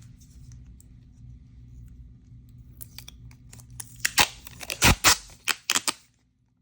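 Sticky tape being pulled off the roll in short rasping strips, a quick cluster of sharp strokes about four seconds in, over a faint low hum.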